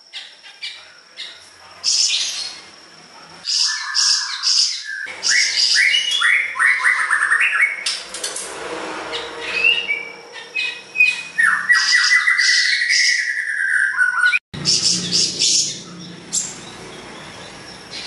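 Caged siri-siri songbird in full song: a fast, varied run of chirps, quick trills and gliding whistled notes mixed with harsh squawky calls, broken off for a moment about three-quarters of the way through.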